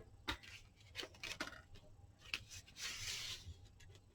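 Faint handling of paper and craft tools on a table: a few light clicks and taps, and a brief rustle of paper about three seconds in.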